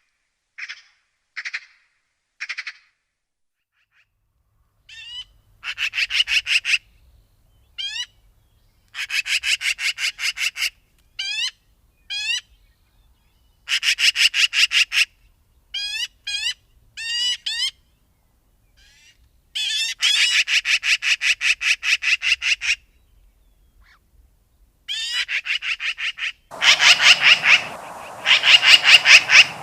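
Magpie chattering: runs of fast, dry rattling calls, each lasting a second or two with pauses between, mixed with short single calls. From about 26 seconds in, a noisier background comes in under the rattles.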